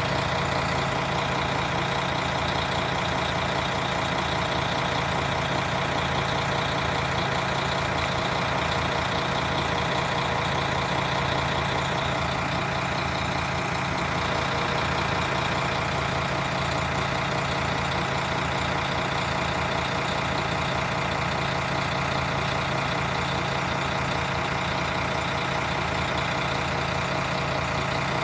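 Diesel multiple-unit railcar engines idling steadily, a constant low hum with no change in pitch or level.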